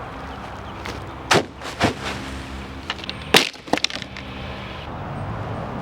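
Several sharp knocks and cracks, the loudest about a second and a half in and again just past three seconds, over a steady low hum.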